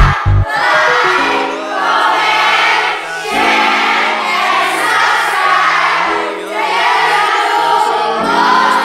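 A choir of children's and women's voices singing a song with held notes, over a steady instrumental accompaniment.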